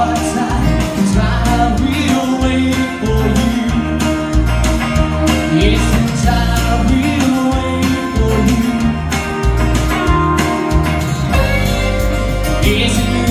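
Live amplified country-rock song played on an electric guitar.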